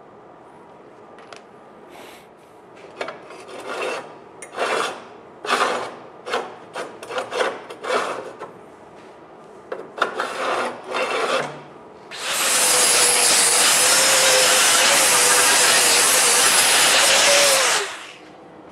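A steel bar slid back and forth along a welded steel rail, a string of irregular metal scraping strokes. About twelve seconds in, a loud steady hissing noise with a held tone starts, runs about five seconds and cuts off.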